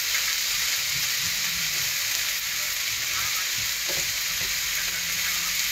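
Diced vegetables (eggplant, zucchini, pepper, carrot and onion) sizzling steadily in oil in a frying pan as they are stirred with a wooden spatula.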